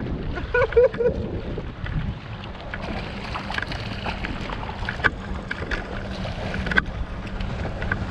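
Wind buffeting the microphone and water sloshing around a kayak, with a few sharp splashes from a hooked fish thrashing at the surface beside the hull.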